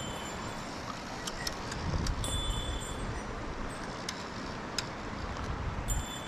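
Steady rush of a mountain stream's flowing water, with a few small sharp clicks and a brief low rumble about two seconds in.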